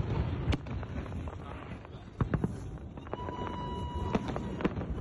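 Fireworks going off: a few scattered sharp bangs and cracks over a steady outdoor rumble, with a steady high tone lasting about a second just past the middle.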